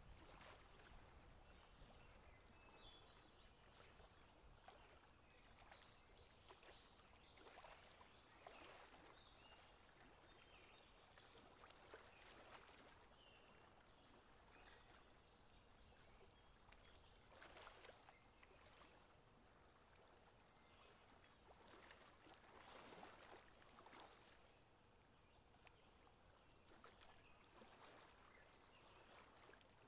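Near silence: faint river ambience with soft, irregular water sounds every few seconds.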